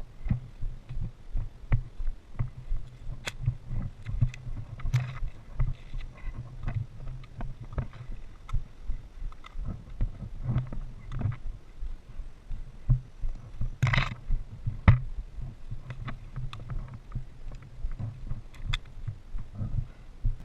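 Footsteps and gear jostling against the microphone, with dull thumps a couple of times a second. Scattered sharp clicks run through it, the loudest about fourteen seconds in.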